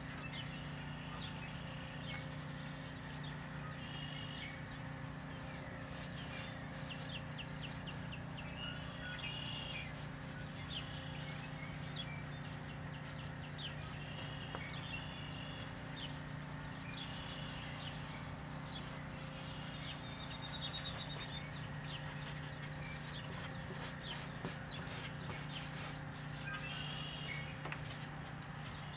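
Charcoal scratching and rubbing on drawing paper in groups of strokes, with songbirds chirping again and again in the background over a steady low hum.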